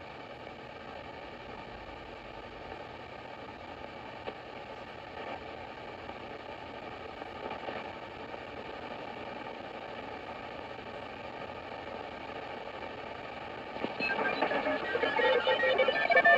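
Sony ICF-2010 shortwave receiver hissing with static and faint steady whistles between stations as it is tuned upward through the shortwave band in AM. About fourteen seconds in, a station playing music comes in, louder.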